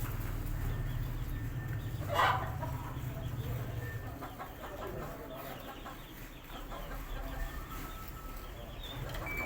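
Chickens clucking, with one loud short squawk about two seconds in. A low steady hum runs underneath and fades out about four seconds in.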